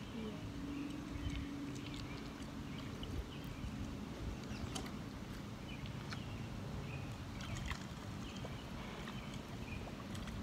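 A stick poking and stirring a shallow puddle of muddy water, breaking up a crust of wet dirt: soft, scattered clicks and splashes over a steady low background noise.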